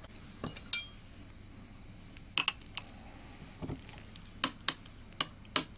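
Porcelain soup spoon clinking against a ceramic rice bowl while scooping food, a series of short, sharp clinks.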